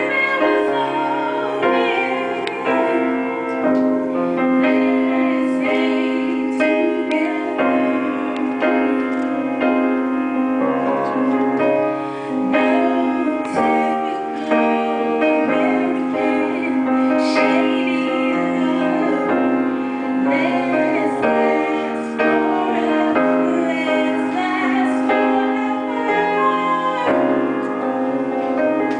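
A woman singing solo with piano accompaniment.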